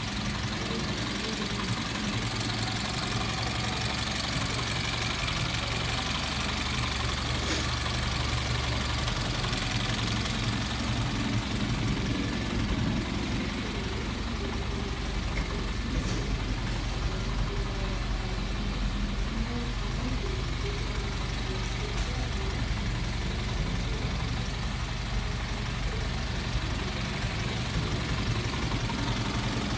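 A machine running steadily with a low, even hum, like an engine at idle; its low note shifts slightly about nine seconds in.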